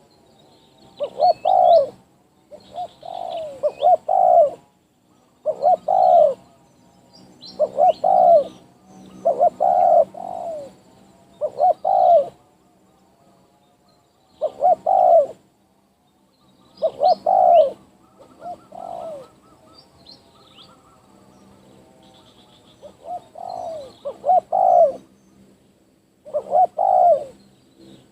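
Spotted doves cooing, one phrase of about a second repeated roughly every two seconds, with a few longer pauses. Faint high chirps of small birds sound in the background.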